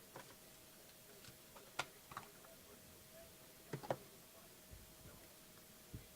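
Faint scattered clicks and taps, about five or six in all, the sharpest about two seconds in and a close pair near four seconds, over a faint steady hum.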